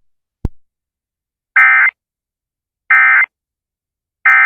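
Emergency Alert System end-of-message signal: three short bursts of SAME digital data tones, each about a third of a second long, spaced about 1.3 s apart. A single click comes about half a second in, before the first burst.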